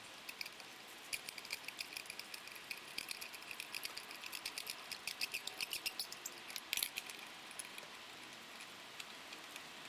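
Metal spark plug socket and extension clicking and rattling in the plug well as new spark plugs are threaded into the cylinder head: a run of light metallic ticks, about four or five a second, with a louder clatter near the seven-second mark, then only a few faint ticks.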